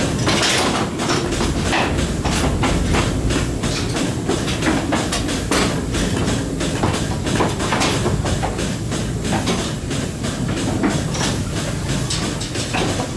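Goat milking parlour machinery running: a steady low mechanical rumble with many rapid, irregular clicks and metallic clanks over it.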